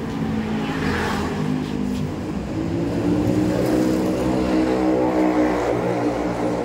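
Motor vehicle engine running close by, its pitch rising a little about halfway through as it speeds up.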